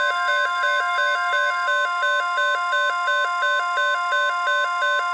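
NOAA Weather Radio 1050 Hz warning alarm tone, one steady high tone, sounded to alert for a severe thunderstorm watch. A rapid two-note warble repeats over it about two and a half times a second.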